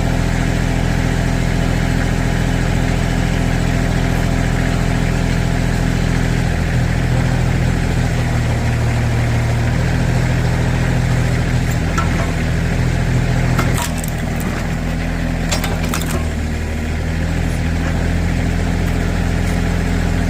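Backhoe engine running under load as the machine crushes junked plastic toys and VHS tapes. The engine note rises about a third of the way in and drops back past the middle, with several sharp cracks of breaking plastic around that drop.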